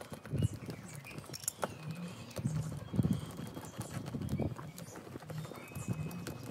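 Hand seam roller pressed and rolled over a freshly glued PVC patch on an inflatable boat tube to bond it, giving irregular dull knocks and clicks as the roller and hands work the tube material.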